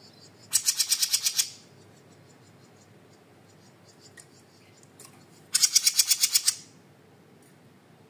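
A small caged songbird giving two loud, rapid chattering trills about five seconds apart. Each trill lasts about a second at roughly ten notes a second.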